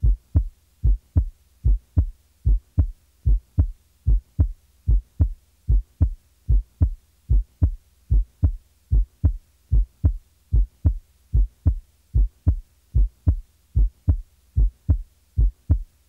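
Normal first and second heart sounds on auscultation: a steady, regular lub-dub, about 75 pairs a minute, each pair opening with the first sound and closing with the second. The first sound is slightly lower in pitch than the second.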